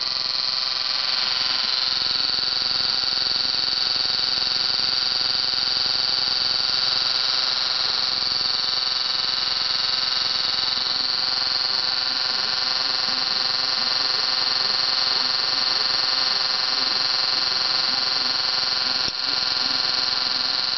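Steady high-pitched electrical buzz from a high-voltage discharge setup, with one brief click about nineteen seconds in.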